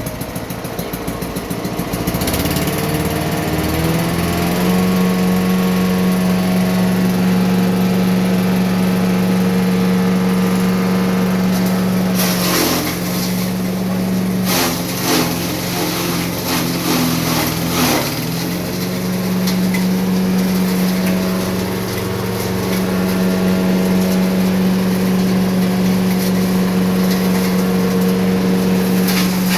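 Small petrol engine of a grass chopper machine running, speeding up a couple of seconds in and then running steadily at high speed. In the middle its note sags briefly twice amid a louder clattering noise.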